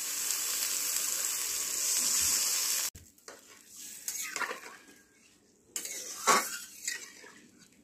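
Water poured into a wok of hot fried spice paste, sizzling steadily for about three seconds before cutting off suddenly. Then a metal ladle stirs the curry, scraping and clinking against the wok a few times.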